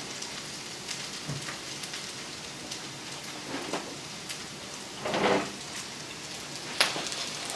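Breaded okra frying in hot oil in a cast iron skillet: a steady sizzle with scattered crackles and pops, with a few clicks of a spatula and a short louder sound about five seconds in.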